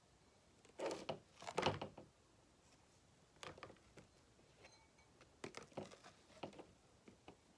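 Scattered small handling noises: light clicks, taps and rustles of objects being picked up and set down. The loudest cluster comes about a second in, with more near the middle and toward the end.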